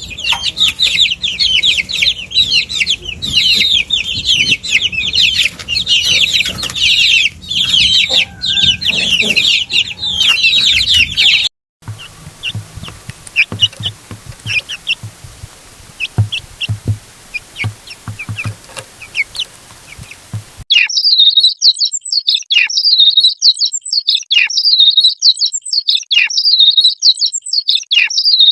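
A brood of baby chicks peeping, many high, rapid calls overlapping. About halfway through the calls thin out to scattered peeps over low knocks, then a dense chorus of shrill, downward-sweeping peeps returns near the end.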